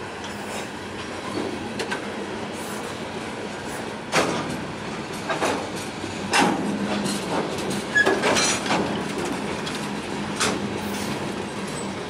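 Freight train boxcars rolling past at close range: a steady rumble of wheels on rail, broken by a handful of sharp knocks from the cars and wheels, the loudest about four, six and eight seconds in.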